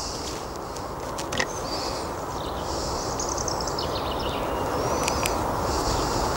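Small birds chirping and trilling over a steady low rush of background noise that swells slightly, with a few faint light clicks.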